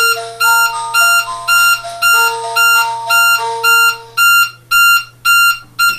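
Wireless panic alarm's siren/buzzer sounding: a shrill electronic beep repeating about twice a second, the sign that a panic button has been activated. Lower changing notes like a tune run underneath and stop about four seconds in.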